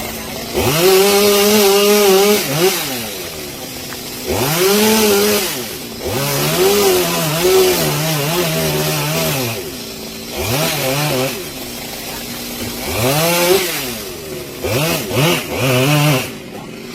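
Two-stroke chainsaw being throttled up and down: about six runs at high revs of one to three seconds each, falling back toward idle between them, with a few quick short blips of the throttle near the end.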